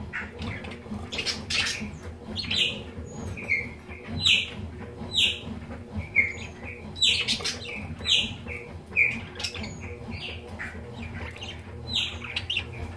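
Caged budgerigars calling: a string of short, sharp chirps, each falling slightly in pitch, about one a second, with softer chattering between. The pairs are courting.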